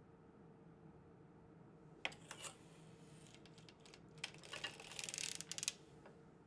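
Circular sock knitting machine being cranked: latch needles clicking through the cams in a rapid run of small metallic clicks. The clicks start about two seconds in and grow thickest just before they stop, shortly before the end.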